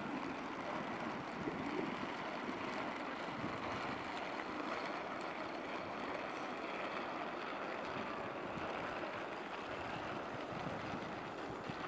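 Steady outdoor city ambience: an even rush of background noise with no single event standing out.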